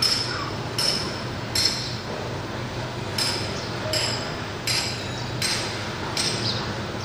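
Lovebirds making a series of short, sharp, high clicking sounds, about eight of them at roughly three-quarter-second intervals, over a low steady hum.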